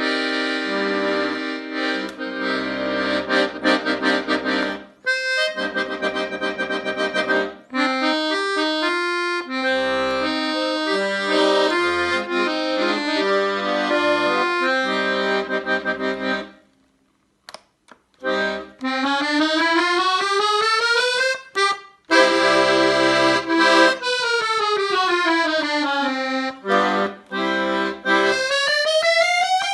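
Accordion playing: sustained chords over low bass notes, then, after a break of about two seconds just past the middle, fast runs sweeping up and down in parallel lines.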